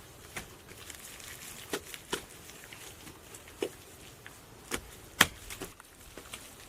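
Light wooden knocks and clicks of hand construction work, about eight of them at irregular intervals, with one sharper knock about two-thirds of the way through.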